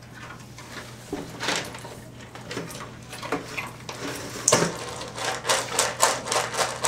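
Dry dog-food kibble clattering and crunching, with scattered clicks, a louder knock about halfway through, then a quick run of rapid clicks.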